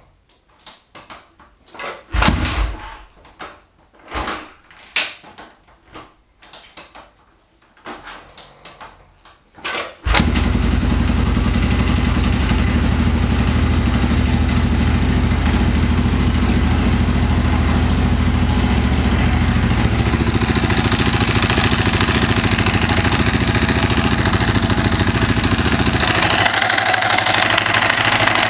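A few clicks and knocks, then about ten seconds in the Husaberg FE650e's big single-cylinder four-stroke engine starts and runs steadily, its sound shifting near the end. The strange noise in it comes from a loose crank gear.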